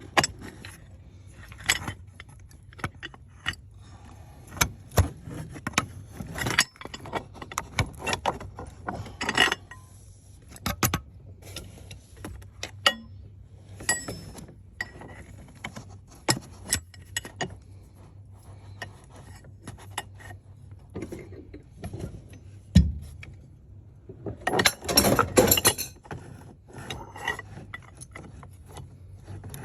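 Metal hand tools (wrenches and sockets) clinking and clicking as they are handled and fitted during engine work, in irregular separate knocks, with a longer stretch of rattling about 25 seconds in.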